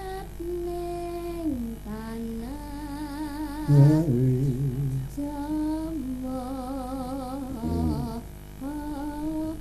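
Sinden, a Javanese female gamelan singer, singing long held notes with a wide vibrato, the pitch sliding between phrases. A heavy low stroke, the loudest sound, comes about four seconds in, and another near eight seconds.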